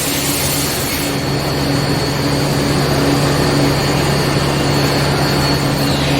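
C-Series heat sealing machine running with a steady hum and a thin high whine; the hiss over it drops away about a second in, and the whine stops near the end.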